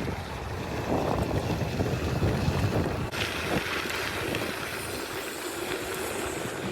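Wind buffeting the microphone of a rider on the move, a gusting low rumble with a steady hiss that grows brighter about three seconds in.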